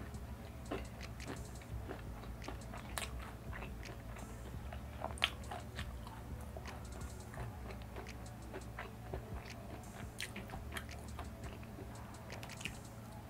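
Close-miked chewing and crunchy bites of Korean fried chicken, an irregular scatter of small crackling crunches.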